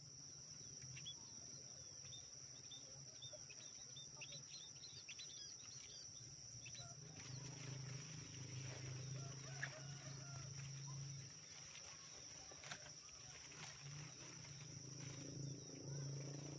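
Small birds giving many short, high chirps over a steady high-pitched insect drone; about seven seconds in, a low hum joins.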